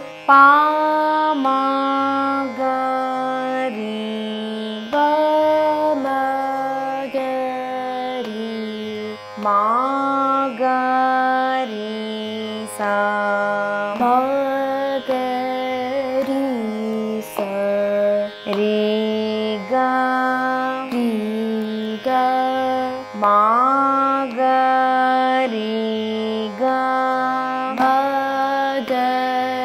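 A girl singing a Carnatic alankaram, a swara exercise, in a clear voice that steps from note to note at an even pace with occasional sliding ornaments. Low sustained instrumental notes sound beneath the voice.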